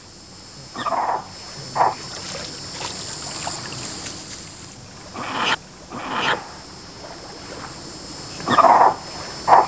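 Short animal calls, three pairs of them a few seconds apart, over a steady high hiss.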